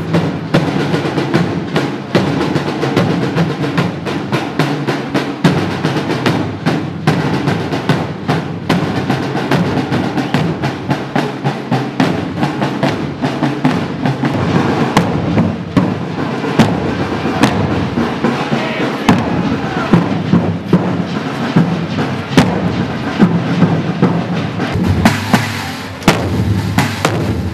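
A drum corps beating large rope-tension field drums with sticks together, a dense run of strikes with no break.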